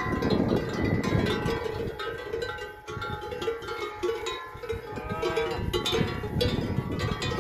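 Many bells on grazing Salers cows clanking and ringing unevenly as the herd moves and feeds.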